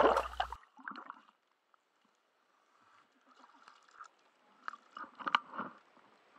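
A scuba diver surfacing with a helmet or hand-held camera at the waterline: faint, scattered water splashes and knocks, with a few sharper clicks about five seconds in.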